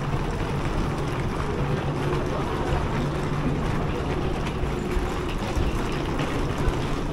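Steady ambient noise of a busy covered railway station concourse: a constant low rumble and hum, with the scattered footsteps and rolling suitcase wheels of a crowd walking through.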